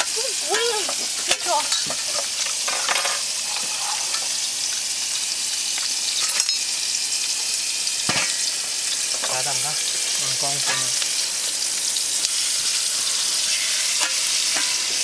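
Beef steak sizzling in a frying pan on a small camp stove: a steady frying hiss, with one sharp knock about eight seconds in.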